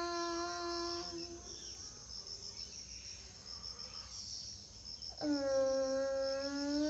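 A long chanted note held on one pitch, ending about a second and a half in; after a pause for breath, a new chanted note starts lower about five seconds in and rises near the end. Crickets chirp rapidly and steadily throughout.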